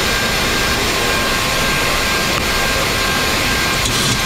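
Steady flight-deck noise of a Boeing 737 MAX climbing after takeoff: an even rush of airflow and engine noise at a constant level, with faint steady tones running through it.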